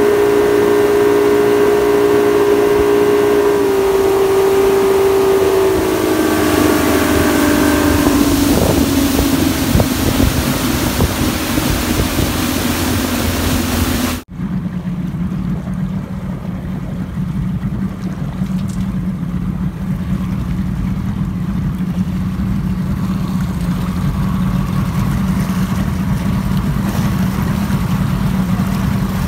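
Motorboat engine running at speed over rushing water and wind; its whine drops in pitch in steps a few seconds in as the throttle eases. About halfway through, an abrupt cut to a lower, steady engine hum with less water noise.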